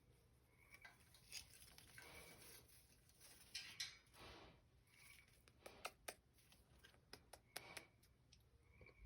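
Pet bird making kiss sounds: a string of short, sharp lip-smack-like clicks, quiet, with a few soft rustling swishes in between.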